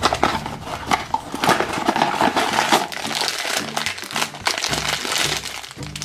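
Black foil blind bag of a Funko Mystery Mini crinkling as hands pull it from its cardboard box and work it open, over background music.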